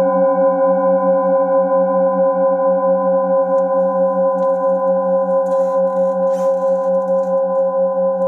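Several brass singing bowls ringing together in a steady, sustained chord of layered tones, the lower tones pulsing with a regular waver.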